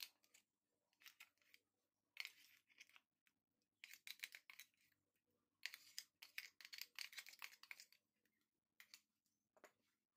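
Quiet scraping and clicking of a spoon as a thick ground green-chilli and coriander paste is spooned into a bowl of marinating chicken, in several short bursts.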